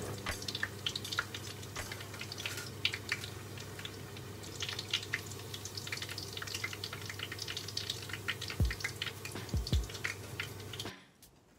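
Hot oil crackling and spattering around breaded corn dogs deep-frying in a pot, a dense run of small pops, with a few low knocks near the end. The frying sound cuts off suddenly about a second before the end.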